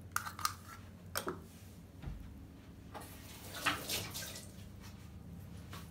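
A few small clicks of eggshell and an egg dropping into a glass bowl of milk and oil. About three seconds in comes a short rush of running water.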